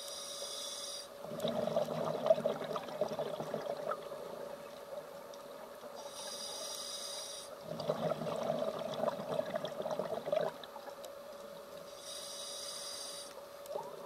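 Scuba diver breathing through a regulator underwater: a short high hiss of each inhalation, then a longer burst of bubbling exhaust. The cycle repeats about every six seconds, with three inhalations and two exhalations.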